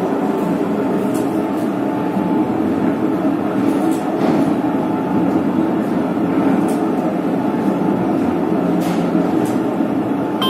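Motor-driven platen die punching and creasing machine running, a steady mechanical rumble from its drive and flywheel with a faint clack roughly every two to three seconds as the platen cycles.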